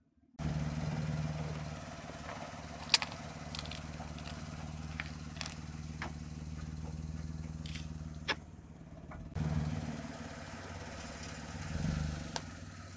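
Car engine running steadily as the tyre rolls over slime-filled piping bags and plastic cups. A few sharp cracks and pops come from things bursting under the tyre, the loudest about three seconds in.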